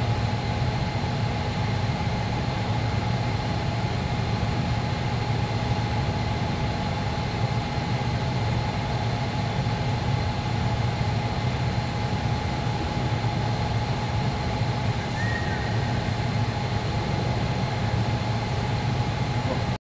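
A steady mechanical drone: a low hum with fainter high tones above it.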